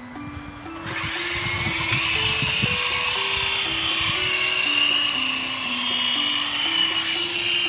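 Small electric motors and rotors of a toy remote-control helicopter drone whining: starting about a second in, rising in pitch, then holding a high, wavering whine that cuts off suddenly at the end. A simple background melody plays underneath.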